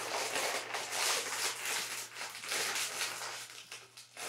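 Crinkly chip bag rustling and crackling in irregular bursts as it is opened, easing off near the end.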